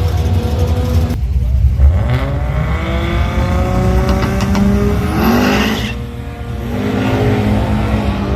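Drag-racing car accelerating hard, its engine pitch climbing through the gears, with shifts about a second in and again around six seconds.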